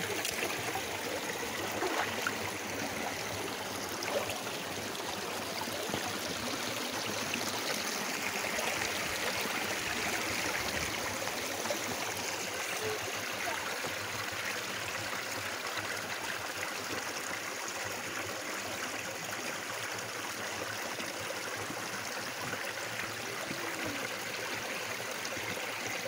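Shallow, rocky stream running steadily around wading boots, with a few small splashes as the feet move through the water.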